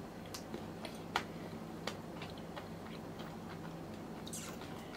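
Faint, scattered small clicks and a brief soft hiss about four seconds in, from salting and chewing pieces of boiled birch polypore.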